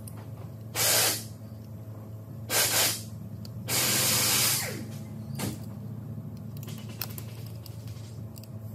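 Three short hissing bursts of pressurised spray at a semi truck's wheel hub: one about a second in, a double one near three seconds, and a longer one of nearly a second around four seconds. A steady low hum runs under them, and a few light clicks of parts being handled come later.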